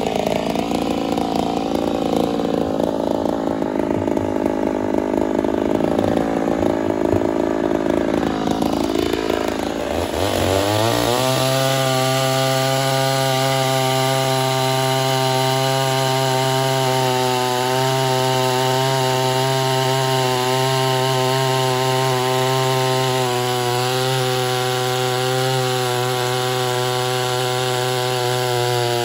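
Ported Poulan 245a two-stroke chainsaw running hard, its engine pitch wavering and dipping under load. About ten seconds in, the revs climb and then hold a steady high pitch.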